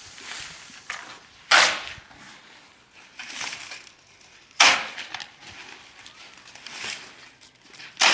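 Three sharp, rough impacts about three seconds apart, each trailing off quickly, like tools or material being struck or dropped during construction work.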